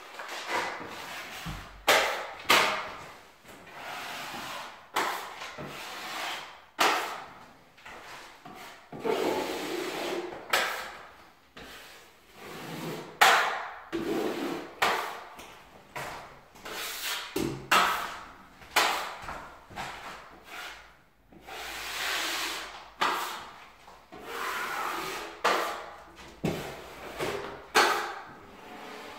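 Repeated scraping strokes of a metal drywall taping knife smoothing joint compound over reinforced corner tape on a plasterboard corner. Each stroke lasts about a second, in an uneven rhythm, with a few sharp knocks among them.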